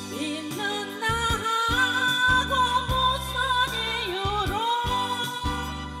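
A woman singing a slow Korean song live into a microphone over instrumental backing, holding long notes with vibrato.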